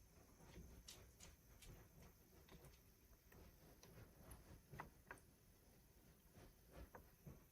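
Near silence: faint room tone with a scattering of small, irregular clicks.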